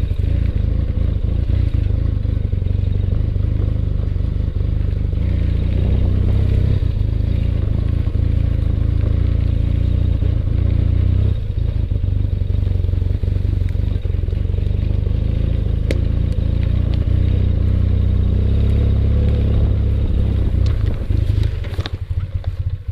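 BMW boxer-twin motorcycle engine running steadily as the bike rides off-road through tall grass, with the bike rattling. Near the end the sound falters and then stops abruptly as the bike goes over into the grass.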